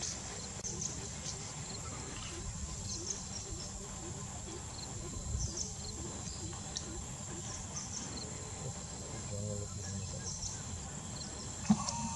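Steady high-pitched drone of insects, with scattered short faint bird chirps and one brief louder sound near the end.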